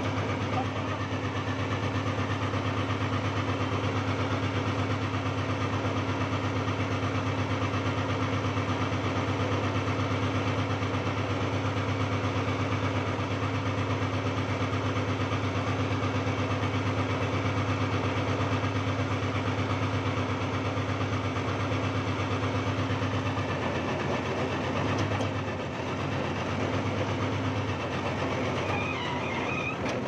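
Old backhoe's engine running steadily with a deep, even hum, its tone shifting briefly about 25 seconds in.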